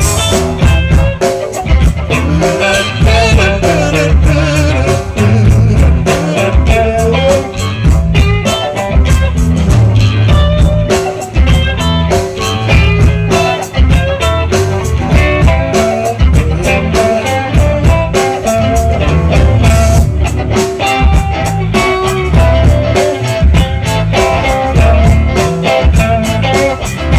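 Blues band playing: electric guitar lead over bass guitar and a drum kit.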